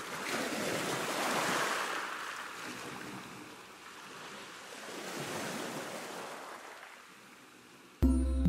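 Waves washing in: a rushing noise that swells and fades twice, about four seconds each. Music starts suddenly near the end.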